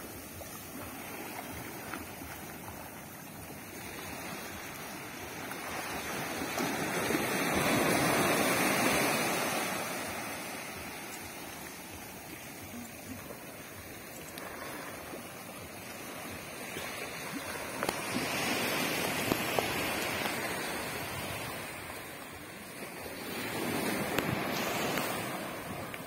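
Small waves washing up on a sandy beach and drawing back, the wash swelling and fading three times, loudest about eight seconds in.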